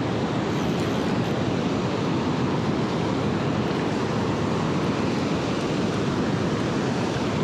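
Fast river water rushing over rocks in whitewater rapids, a steady unbroken noise.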